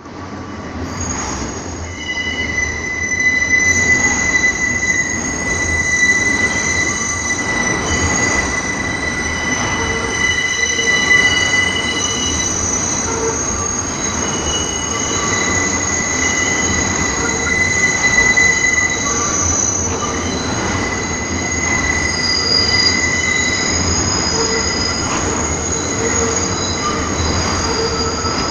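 New York City subway M train's steel wheels screeching against the rail through a curve. Several high shrill squeals hold and shift over a steady rumble of the train.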